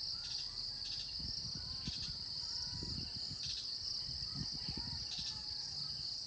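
Steady chorus of insects, crickets trilling, a continuous high buzz that does not let up, with faint low thumps underneath.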